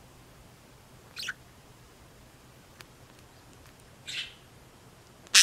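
Pet budgerigars chirping: two short high chirps, about one second and four seconds in, then a much louder call right at the end.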